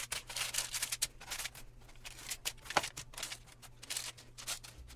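A plastic spatula scraping and tapping on a parchment-lined baking sheet, with the paper crinkling, as baked broccoli-cheese bites are flipped one by one: short, irregular clicks and scrapes.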